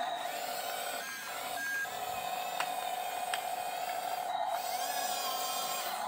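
Small electric drive motors and gearboxes of an RC tracked bulldozer whining steadily as it crawls and pushes dirt, dipping briefly a few times, with two light clicks in the middle.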